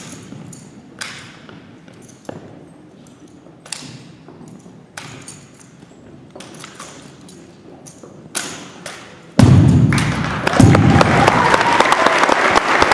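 Sharp slaps and knocks from an exhibition drill rifle being spun, caught and struck, one about every second or so, each with a short echo. About two-thirds of the way in the crowd breaks into loud cheering and applause, which is the loudest part.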